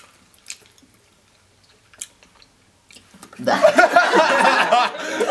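Quiet chewing of jelly beans with a few faint mouth clicks. About three and a half seconds in, two people start laughing loudly.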